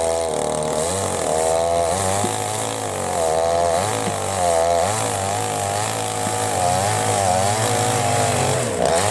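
Small chainsaw cutting through a rotten log, its pitch wavering up and down as the chain bites and eases, dropping briefly near the end.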